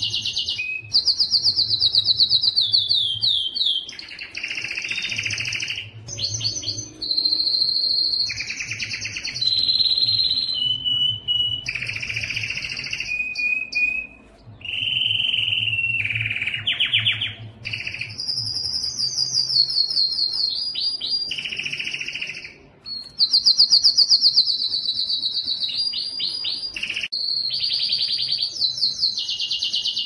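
Domestic canary singing a long, almost continuous song. Fast trills of repeated notes, several of them falling in pitch, alternate with buzzy rolls and short pure whistled notes, and the phrase changes every second or two. A faint low hum runs underneath.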